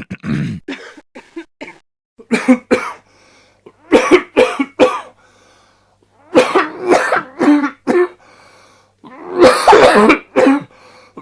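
A person coughing in repeated fits of two to five short coughs, with pauses between the fits and a longer, heavier fit near the end.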